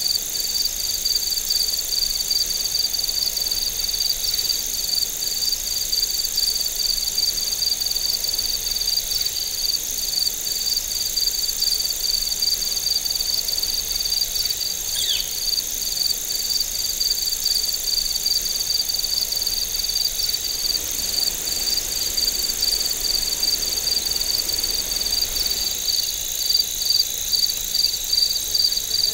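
Autumn chorus of crickets: a steady high trill under a regular, evenly pulsed chirping that runs without a break. A single short, falling chirp stands out about halfway through.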